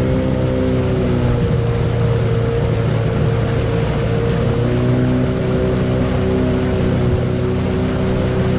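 Motorboat engine running under way, with a steady rush of water and wind. Its note shifts about a second and a half in and shifts back a little before five seconds.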